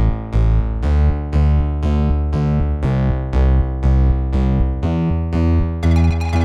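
Background music: an electric piano or synthesizer keyboard plays evenly spaced notes, about three a second, over a deep bass line. A bright, hissing percussion layer comes in near the end.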